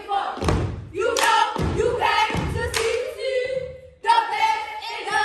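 A group of girls chanting a cheer in unison, with heavy thuds keeping the beat. The chant breaks off for a moment just before four seconds in, then starts again.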